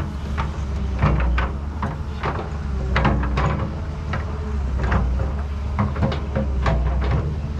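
Radio-controlled model excavator working: a steady low motor hum with frequent short clunks, knocks and squeaks from its moving parts.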